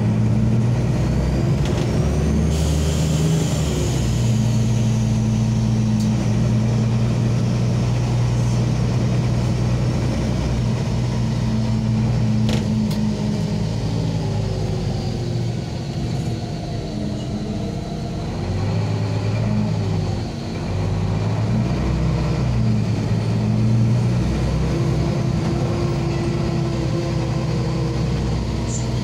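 LAZ city bus heard from inside the cabin while driving, its engine running steadily, then rising and falling in pitch over the second half as the bus changes speed. A high whine glides up and then down in the first few seconds.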